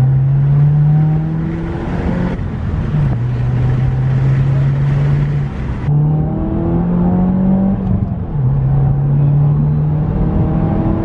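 2016 Subaru WRX's turbocharged flat-four through a Nameless axle-back exhaust with a 4-inch muffler, heard from inside the cabin under acceleration. The engine note climbs steadily in pitch, then drops three times as the car shifts up.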